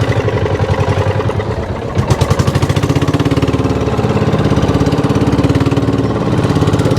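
Small boat engine running with a fast, even chug. It speeds up about two seconds in, then runs steadily.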